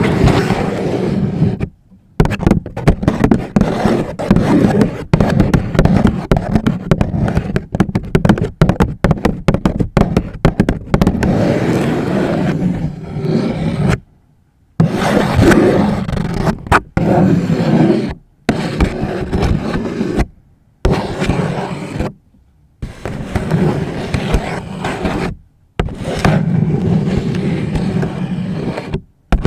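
Long fingernails scratching and tapping on a paper bag close to the microphone. The sound is a dense crackling with sharp clicks, stopping briefly every few seconds.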